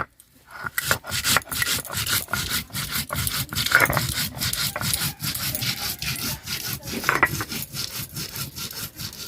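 Stone roller rubbed back and forth on a flat grinding stone (sil-nora), grinding ginger into paste: a steady run of rough, rhythmic scraping strokes.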